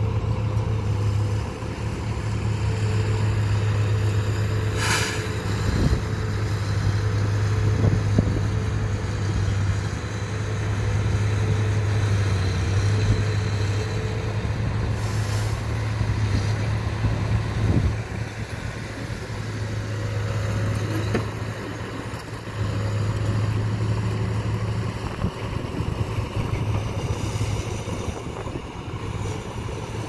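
Diesel tipper truck's engine running steadily while its hydraulic hoist raises the loaded body to dump soil. There are short hisses about five seconds in and again about fifteen seconds in.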